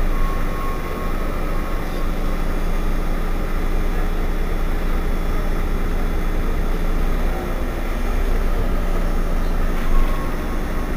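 Irisbus Citelis 12 city bus's rear-mounted engine idling steadily while the bus stands at a stop.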